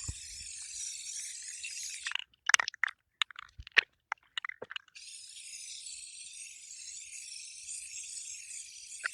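Aerosol spray paint can hissing steadily as paint is sprayed in light coats; the spray stops about two seconds in, a run of sharp clicks and rattles follows, and the hiss resumes about five seconds in.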